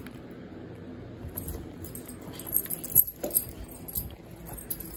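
Two small dogs play-wrestling, their collar tags and leash clips jingling in irregular bursts over scuffling. The jingling is loudest about three seconds in.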